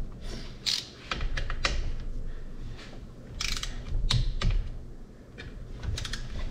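Click-type torque wrench ratcheting and clicking as bolts on a supercharger housing are tightened to 20 ft-lbs. Scattered sharp clicks, some in quick runs of two or three.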